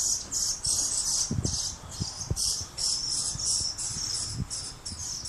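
High-pitched chirping outdoors, short chirps repeating about three times a second, with a few faint low knocks underneath.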